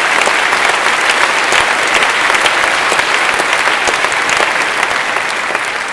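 Audience applauding: dense, steady clapping that starts to die away near the end.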